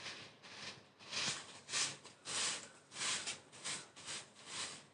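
A spatula stirring onions, curry leaves and crushed ginger-garlic frying in a hot pan: repeated short scraping, sizzling strokes, about two a second.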